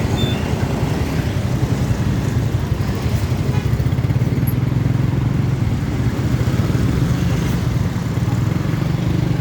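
Motorcycle engine running steadily while riding, with a rushing, fluttering noise throughout.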